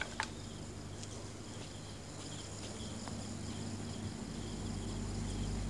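Crickets chirping faintly and steadily over a low hum, like a night-time ambience bed.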